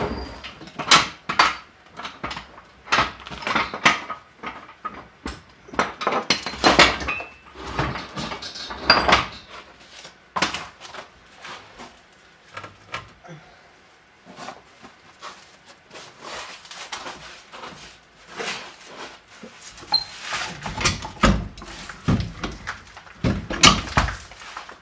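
Irregular knocks, clunks and rattles of metal parts and tools being handled under the car, with a few louder thumps near the end.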